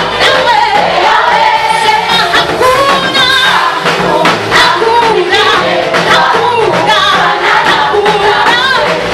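Gospel choir singing a praise song with a full band accompaniment and a steady beat.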